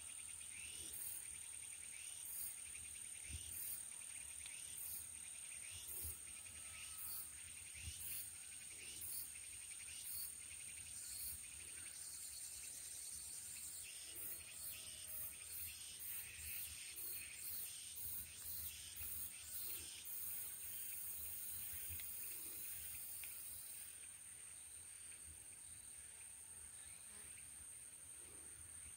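Insects, crickets among them, singing: a steady high-pitched trill under rhythmic chirps, about one a second at first and quicker, about two a second, in the middle. The chirping stops about two-thirds of the way through and the sound grows fainter near the end.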